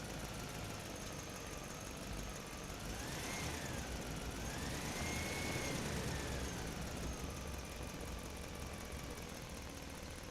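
RC truck's electric motor and gearbox whining over a low rumble. The whine rises in pitch, dips, rises again and falls away as the truck speeds up and slows down.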